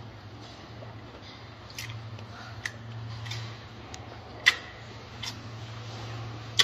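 A gorilla chewing pineapple: scattered crisp, wet crunches, about one every second, the loudest a little past the middle. A steady low hum runs underneath.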